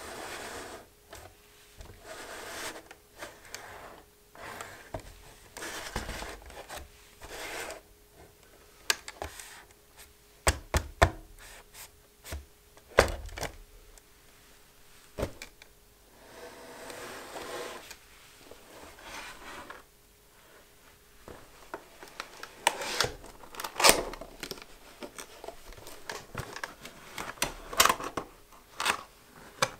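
A cardboard product box handled and opened with leather-gloved hands: rubbing and scraping of card, with scattered sharp taps and knocks as it is turned over, set down and its flaps and inner tray worked.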